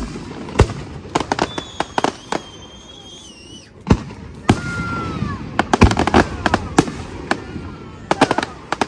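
Aerial fireworks display: a rapid series of sharp booms and crackling bursts, coming in clusters. A high, wavering whistle lasts about two seconds before dropping away.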